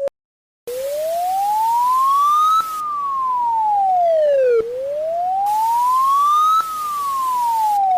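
Electronic wail siren from an emergency-alert alarm: a single clean tone that glides slowly up for about two seconds and back down for two, twice over, with a hiss behind it. It starts after a brief silence.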